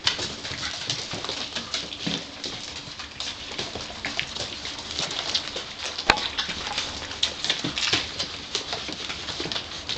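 Gordon Setter puppies squeaking and grunting as they tussle, with claws scrabbling and pattering on a tiled floor in many short, irregular bursts.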